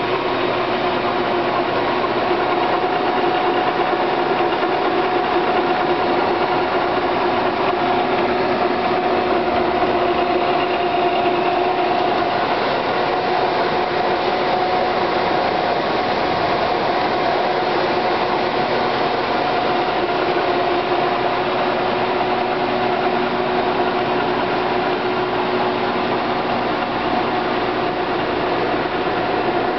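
A 1981 LeBlond 24-inch hollow-spindle lathe running with its spindle and chuck turning under power: a steady mechanical hum of the headstock drive, with a constant whine over it.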